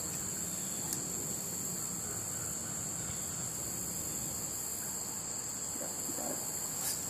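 Steady, high-pitched insect chorus that hums on without a break, with a faint click about a second in and another just before the end.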